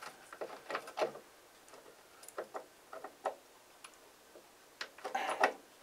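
Small irregular clicks and taps of a screw and metal parts being handled at a model airplane's metal engine mount while the screw is fitted through by hand. A quicker, louder run of clicks comes near the end.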